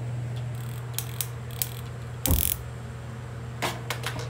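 Sharp clicks of a handheld spark gas lighter and a gas stove's burner knob as a burner is lit, with a louder short rush about two seconds in.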